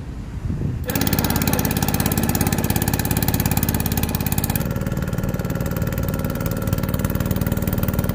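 An engine running steadily close by, with a fast, even pulsing throbbing; it comes in suddenly about a second in.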